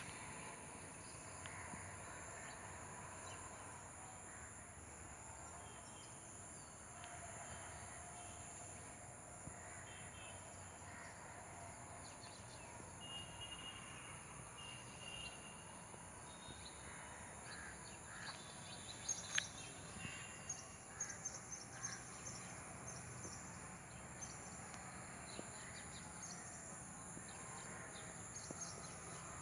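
Sparrows and other small birds chirping in scattered short calls, busiest in the second half, over a faint steady outdoor background.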